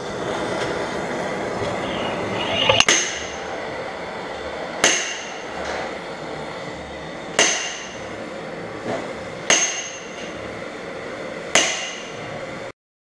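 A slide hammer strikes five times, about every two seconds, each a sharp metallic clang with a short ringing tail, to pull a seized water pump out of a VW 2.5 TDI engine. Under the clangs runs the steady hiss of a gas torch heating the pump housing.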